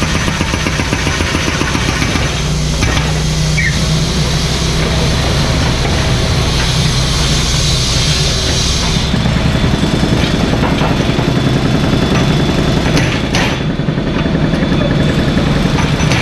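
Mini excavator's diesel engine running steadily under work, with a hiss over it that drops away about nine seconds in.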